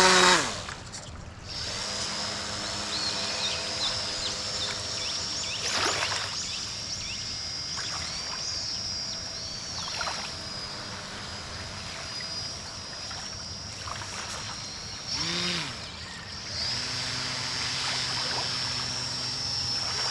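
Homemade radio-controlled boat's small electric motor running with a steady high whine as the boat moves out across the water. A few short chirps sound over it, and a loud pitched sound comes right at the start.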